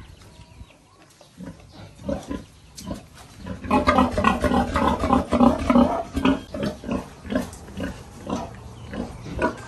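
Pigs grunting, with a loud run of rapid, closely spaced grunts starting about four seconds in, then easing to slower, scattered grunts.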